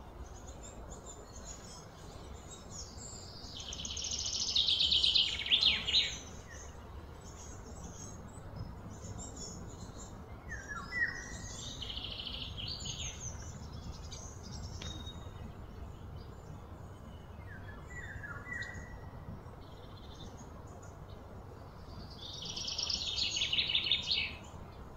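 Outdoor ambience of birds calling: short falling chirps now and then, and two loud, rapidly pulsed high calls that swell for a few seconds and then cut off, one near the start and one near the end, over a steady low background hum.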